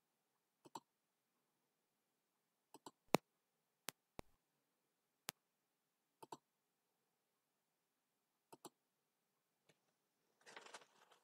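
Faint computer mouse clicks: about a dozen short sharp clicks scattered through, several in quick pairs, with a brief soft rustle near the end.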